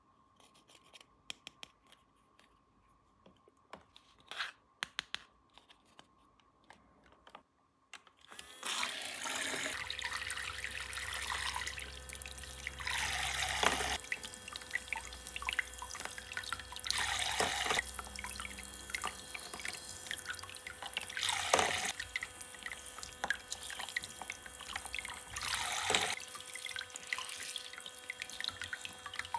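Light clicks of small plastic toy pieces being handled. About eight seconds in, water starts running steadily from a toy sink faucet into a small basin, with a faint steady hum under it and a louder splashing swell about every four seconds.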